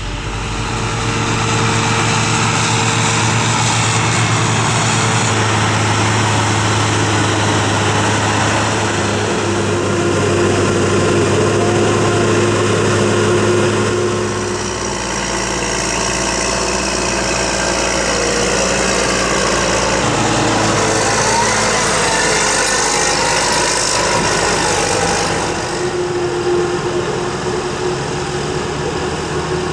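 Heavy farm machinery at work in a maize harvest: forage harvester and tractor engines running under load, a steady drone with a low hum. The sound changes character about 15 seconds in and again about 25 seconds in.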